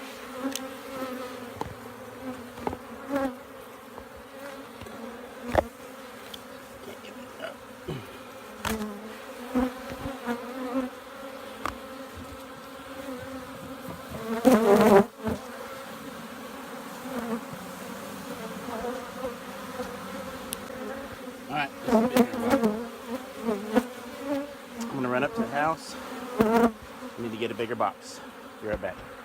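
A honeybee colony buzzing steadily, a low hum. The buzz swells louder several times with a wavering pitch, loudest about halfway through, and scattered knocks and clicks come through it.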